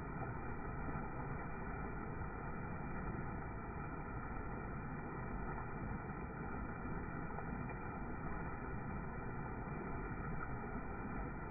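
Muddy floodwater in a swollen creek pouring over a small rock-ledge waterfall into a churning pool: a steady, low rushing.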